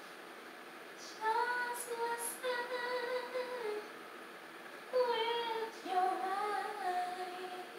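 A woman singing unaccompanied: two long phrases of slow, held notes, the first starting about a second in and the second about five seconds in.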